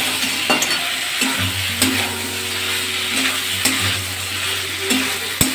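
Elephant foot yam and soya chunks sizzling in hot spiced oil in a metal kadai while being stirred, with a metal spatula scraping and clicking against the pan: the kosha (dry sauté) stage of the curry.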